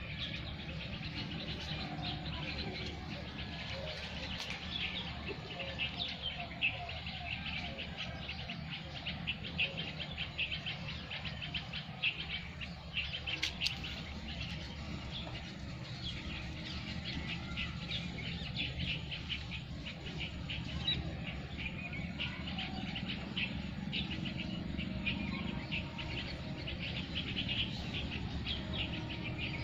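Birds chirping in rapid, overlapping short calls, over a steady low hum.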